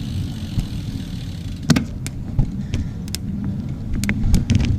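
Steady low wind and road rumble of a bicycle being ridden, with a handful of short sharp clicks and ticks from the bike scattered through it.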